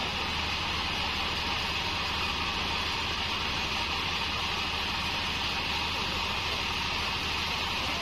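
Bandsaw mill machinery running steadily: a constant, even noise with a low hum underneath.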